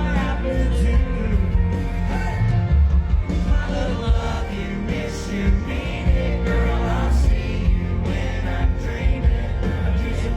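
Live country band playing loudly with a male lead singer, heavy bass and drums under the vocal.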